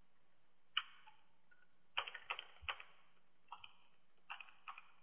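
Faint typing on a computer keyboard: single keystroke clicks in short, irregular runs as a sentence is entered.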